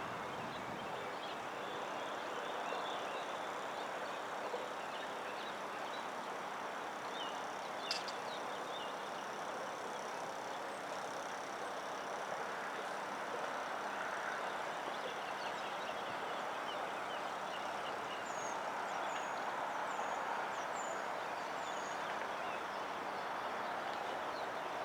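Steady hum of road traffic with short, high chirps of small birds throughout, a quick row of them near the end, and one sharp click about eight seconds in.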